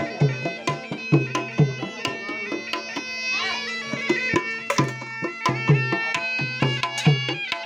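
A bagpipe plays a folk tune over a steady held drone, with a hand drum keeping a regular beat.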